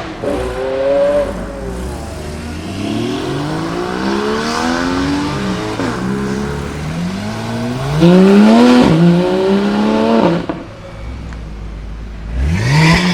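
Supercar engines accelerating hard. The pitch climbs and drops back at each gear change several times. Near the end it settles briefly to a lower steady note, then revs up sharply again.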